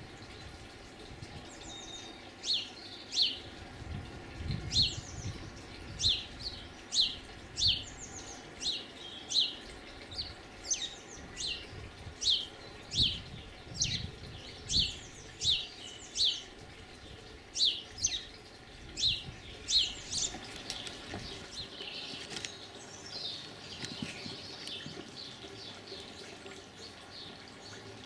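A garden bird calling over and over: short, high, downward-sweeping chirps about two a second, giving way to fainter twittering near the end.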